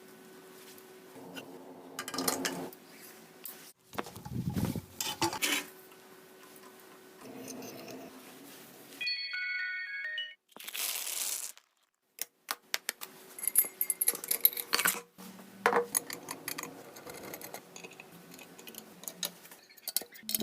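Metal tools and parts clinking and knocking during hand work on a bike, in irregular sharp clicks. A short high warbling tone sounds about nine seconds in, followed by a brief hiss.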